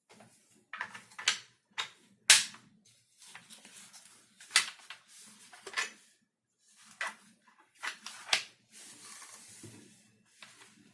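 Irregular clicks and knocks of hard plastic parts being handled and fitted together, with a few louder snaps and a short scraping hiss near the end.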